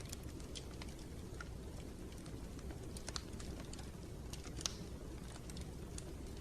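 Wood fire crackling in a fireplace: a steady low rumble of the flames with irregular sharp pops and snaps, the loudest pop a little under five seconds in.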